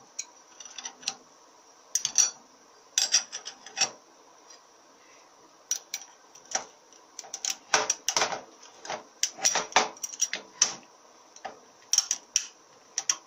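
Automatic transmission clutch plates, steel and friction, clinking and scraping against each other and the clutch drum as they are fitted by hand: irregular clicks and light metallic knocks, busiest in the middle.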